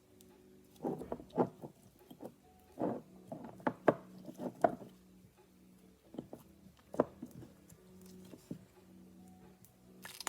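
Slime being squished and poked by hand: irregular sticky clicks and small pops, thick over the first few seconds, then sparser.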